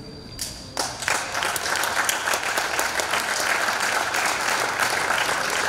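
Audience applauding: many hands clapping, starting just under a second in and going on steadily.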